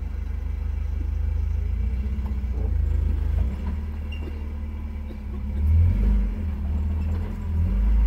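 Off-road pickup truck's engine rumbling under load as the truck crawls up a rocky ledge, the engine note swelling twice in the second half.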